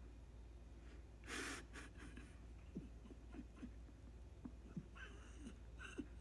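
Near silence: faint room tone, with one short soft rush of noise about a second in and a few faint clicks and taps.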